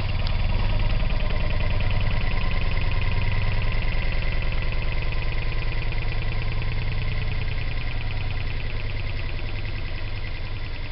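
Small electric air compressor running with a fast, even pulsing of its pump. It comes up to full speed within the first half-second and runs on steadily, growing slightly quieter towards the end.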